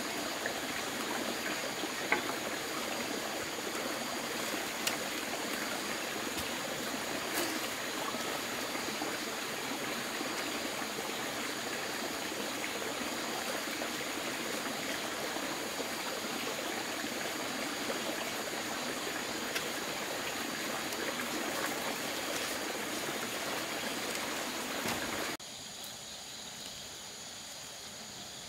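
Running water, a steady rushing with a few faint clicks in it; it stops abruptly near the end, leaving only a fainter hiss.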